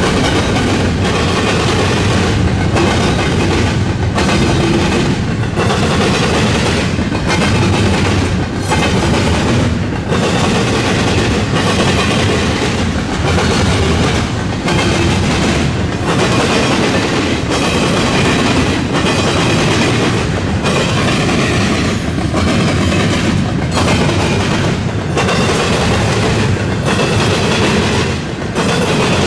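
Double-stack intermodal well cars of a freight train rolling past, with a steady rumble and the steel wheels clattering over the track in a regular rhythm.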